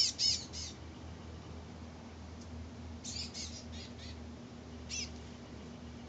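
Small songbirds, which the uploader guesses are chestnut-backed chickadees, giving short, high chirps in quick clusters: a few at the start, a longer run about three seconds in, and one more near the end.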